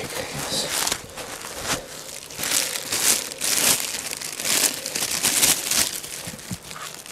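Plastic potato grow bag crinkling in irregular bursts as it is handled.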